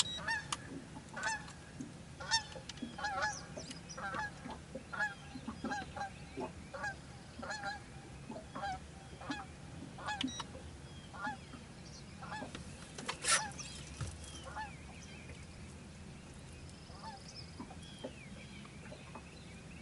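Geese honking, a call every half second to a second for about twelve seconds, then fading out. A single sharp click about thirteen seconds in.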